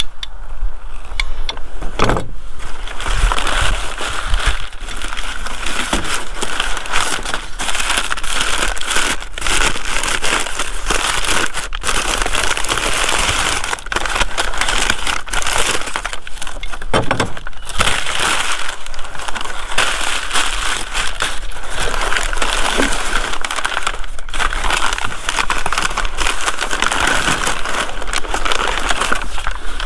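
Packing material crinkling and rustling, with frequent clicks and knocks of metal parts, as a boxed wheel hoe is unpacked.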